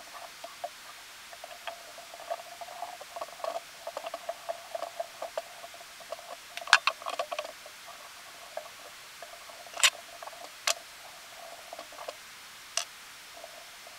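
Fly-tying at a vise: small rustling and handling noises of thread and feathers being worked onto a streamer hook, with several sharp clicks of tools in the second half.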